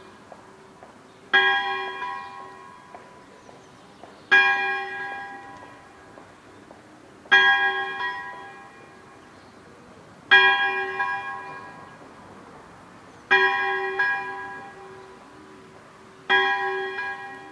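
A single bell tolling slowly, struck six times about three seconds apart, each stroke ringing out and fading before the next.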